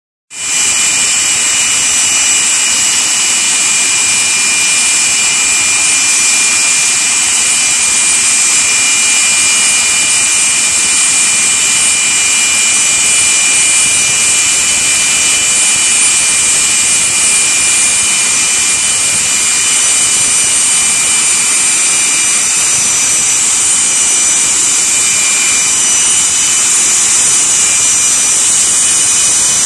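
Jet dragsters' turbine engines running on the start line: a loud, steady high-pitched whine of several tones over a rushing hiss.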